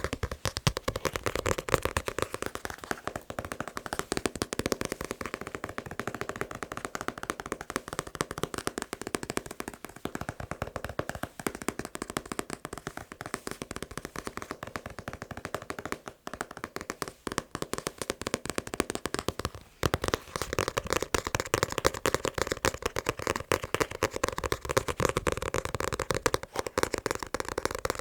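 Fast, dense tapping on a manga book, the taps running together in a rapid patter, with two brief pauses, about 16 and 20 seconds in.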